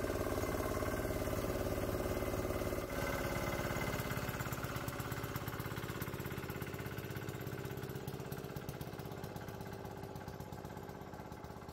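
Small 196cc 3 hp single-cylinder air-cooled diesel engine running steadily, driving the alternator of a diesel-electric golf cart; its fast, even firing grows gradually fainter as the cart drives away.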